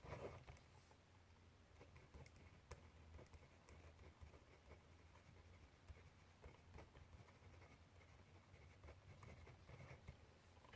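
Faint handwriting on paper: light scratching strokes and scattered small ticks of the writing tool, with a slightly louder scrape right at the start. A low steady hum runs underneath.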